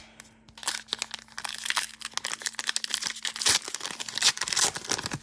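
Crinkling and tearing of a foil trading-card pack wrapper being ripped open by hand, a dense, irregular crackle that starts under a second in.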